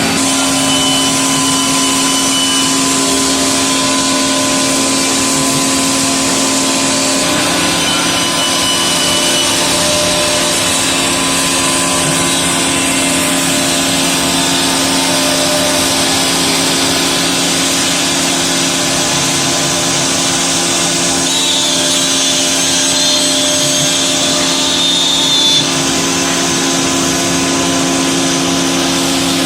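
Single-head CNC router cutting a wood panel: the spindle runs with a steady hum while the bit hisses through the board. The hum steps slightly higher about seven seconds in.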